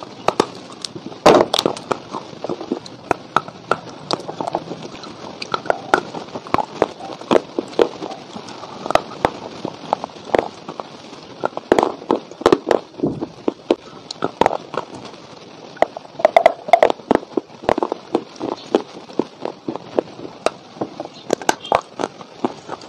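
Dry clay chunks being bitten and chewed close to the microphone: a dense, irregular run of sharp crunches and crackles.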